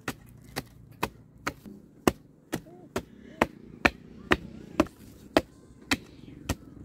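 A wooden stick ramming loose earth around a bamboo post to pack it, making sharp, even thuds about two a second.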